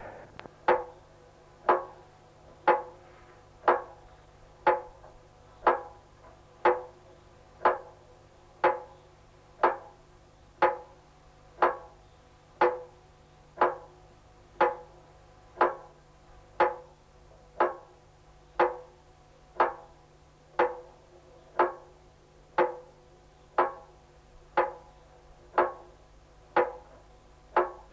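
Evenly spaced hollow knocks, about one a second, each ringing briefly at a clear pitch.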